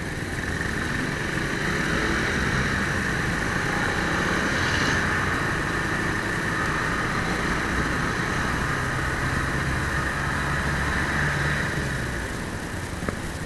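Motorcycle engine running under way with wind rushing past the rider. The sound swells over the first couple of seconds as the bike pulls away, holds steady, and dies down near the end as it slows. A single sharp click comes near the end.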